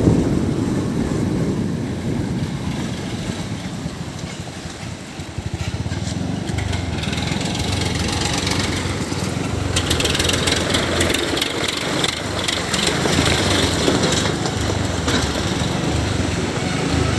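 A motorcycle engine running at low speed, mixed with the rumble of dump truck engines alongside. A hissing rush of wind and road noise comes in about ten seconds in.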